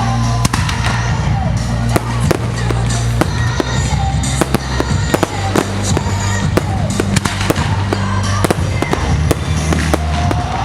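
Fireworks display: many sharp bangs and crackles going off in quick succession throughout, over loud music with a heavy bass line.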